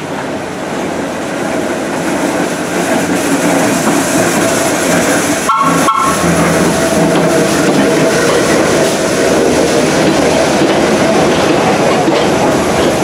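Vintage New York City subway train pulling into the station, its wheels and running gear growing louder as it approaches, then rolling steadily past with a clatter over the rails. A brief high tone sounds about halfway through.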